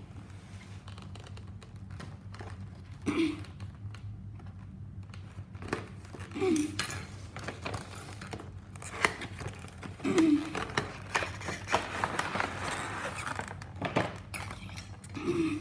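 Cardboard box and plastic packaging being opened and handled: crinkling and rustling with scattered knocks, busiest a little past the middle, over a steady low hum.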